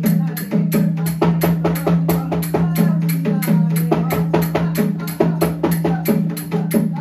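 Mridangam, a double-headed barrel drum, played by hand in a fast, even rhythm of about five strokes a second, with small hand cymbals ringing on the beats over a steady low tone.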